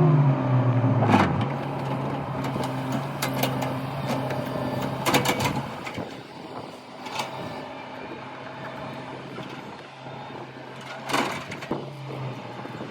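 Excavator diesel engine running steadily, its pitch dropping over the first second, with several sharp clanks and knocks from the machine working, the loudest about a second in, about five seconds in and near the end.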